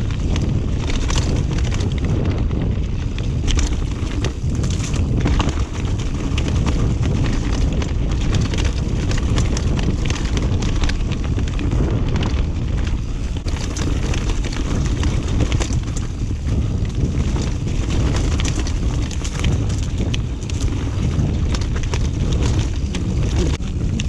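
Wind rushing over an action camera's microphone as a mountain bike rides fast down a rough dirt trail, with the bike's frame and parts rattling and knocking over roots and rocks.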